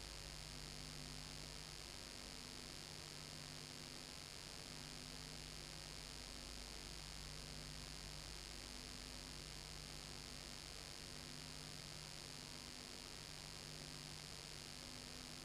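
Steady electrical mains hum with hiss and a faint tone that comes and goes about every two seconds; no other sound, as on the transfer of a silent home-movie film.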